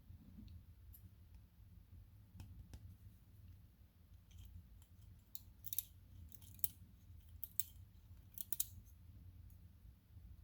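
Light metallic clicks and ticks of tweezers and small brass lock pins against a BKS lock cylinder as its pins are taken out. The clicks come scattered and bunch together in the second half.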